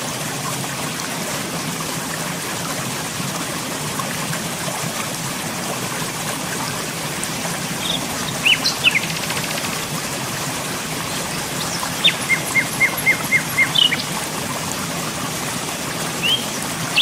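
Birds chirping over a steady hiss: a few short calls about halfway through, then a quick run of about eight short, even chirps a few seconds later.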